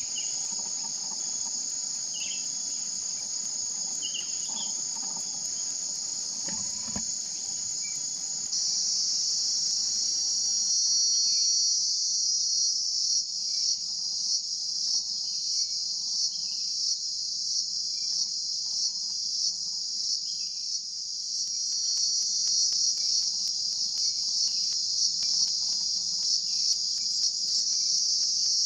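A chorus of insects: a shrill, steady high drone that grows louder about eight seconds in and then pulses evenly, a little more than once a second.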